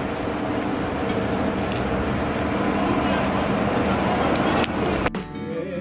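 Steady city traffic noise with a low engine hum from passing or idling vehicles. About five seconds in it cuts off abruptly to background music.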